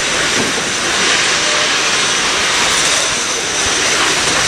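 Steam locomotives venting steam: a loud, steady, rushing hiss.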